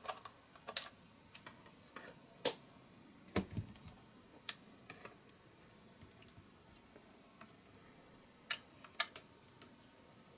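Scattered clicks and light knocks from handling a handheld oscilloscope on a workbench: setting it down and pressing its buttons. The sharpest clicks come about two and a half seconds in and as a close pair near the end.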